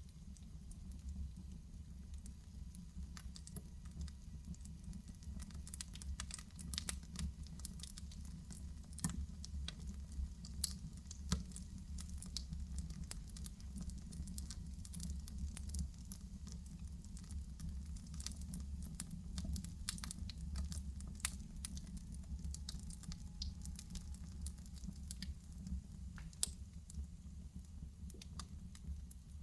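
Fire in a fireplace crackling: irregular sharp pops and snaps, thickest through the middle, over a steady low rumble.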